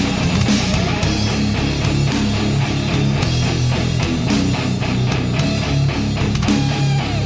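A rock song with guitar, playing loud and steady.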